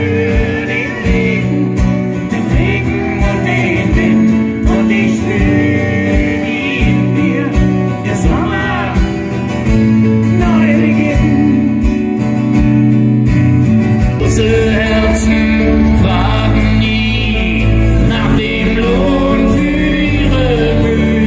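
Live band performance of an acoustic song: voices singing over strummed acoustic guitars, with a steady beat of about two a second. About two-thirds of the way through it switches abruptly to another song with a fuller, heavier bass.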